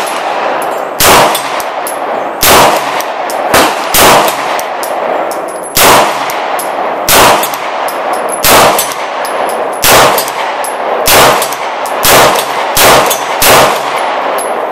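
A 9mm semi-automatic pistol firing slow aimed shots, about a dozen, roughly one every second or so. Each sharp report trails off in echo.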